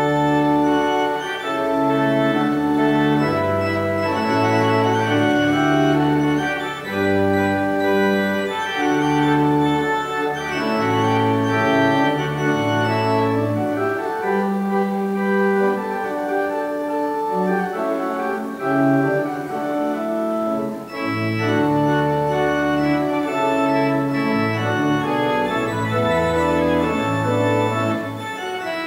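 Organ music: a processional of sustained chords over a stepping bass line, starting abruptly and playing on steadily.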